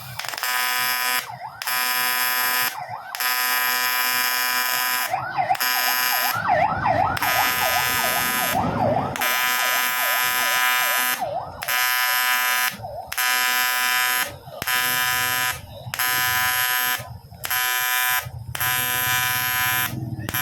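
TIG welding arc buzzing in bursts of one to three seconds, stopping and starting again with short breaks, as a repair weld is laid on a Bajaj CT100 motorcycle engine block.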